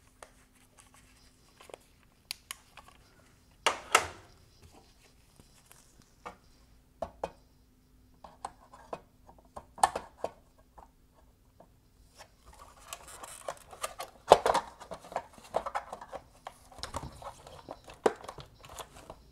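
A hand tool working at a plastic mounting point inside a car headlight housing as the projector bracket is freed: scattered clicks and knocks of tool on plastic, one louder about four seconds in, then a longer stretch of scraping and rustling near the end.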